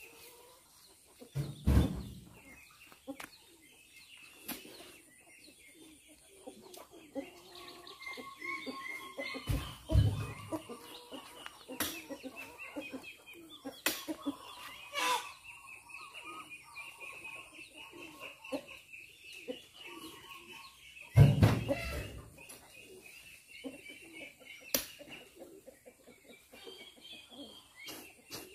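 Chickens clucking and calling throughout, with three heavy thuds, the loudest sounds, as oil palm fruit bunches are thrown into a dump truck's bed, and a few sharp knocks in between.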